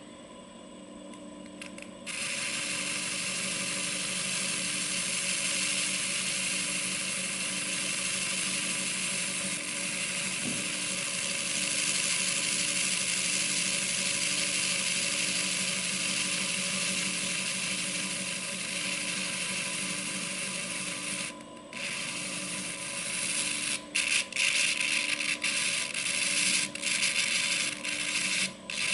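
Abrasive French wheel on a buffer turning slowly, its motor humming steadily with a faint regular pulse. From about two seconds in, a pipe stem is held against the wheel and ground, giving a steady gritty hiss. The hiss stops suddenly about two-thirds through, then comes back as a series of short touches toward the end.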